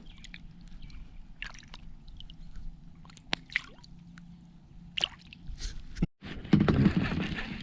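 Small drips, sloshes and light clicking knocks of water and handling around a kayak. About six seconds in the sound cuts out for a moment, then a louder rushing noise follows.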